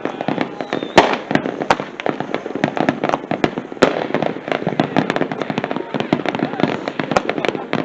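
Fireworks and firecrackers going off: a dense, irregular run of sharp pops and cracks, several a second, with louder bangs about one second and about four seconds in.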